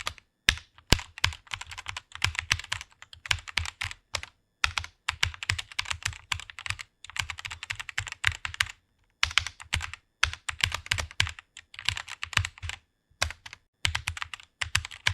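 Fast typing on a computer keyboard: rapid key clicks in runs of a few seconds, broken by short pauses about four seconds in, around nine seconds and around thirteen seconds.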